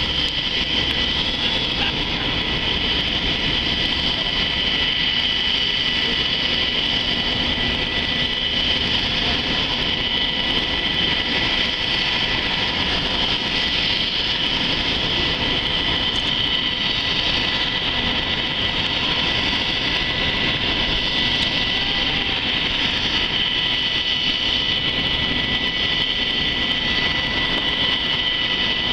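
Sikorsky UH-60 Black Hawk's turbines running on the ground: a steady high whine over a loud rush, unchanging in pitch and level.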